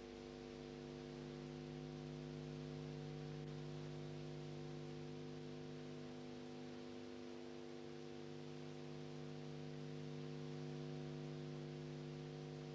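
Steady electrical hum with many fixed overtones over a faint hiss, unchanging throughout.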